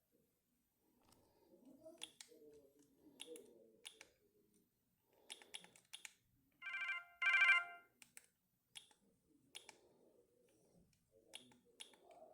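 Siemens AL21 telephone: scattered button clicks, and in the middle a short ringtone preview that plays as two quick electronic trills, the second a little longer and louder.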